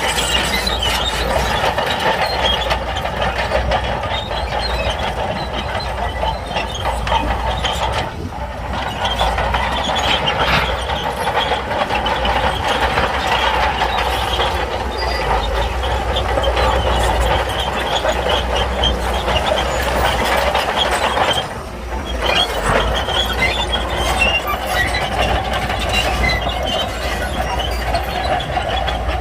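Crawler bulldozer at work: diesel engine running under load, with the steel tracks clanking and squealing continuously. The noise dips briefly twice.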